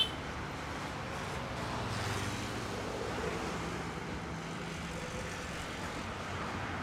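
Slow, dense road traffic: truck and car engines idling and creeping along in a steady low hum, a few engine notes shifting as vehicles move off. A single sharp click comes at the very start.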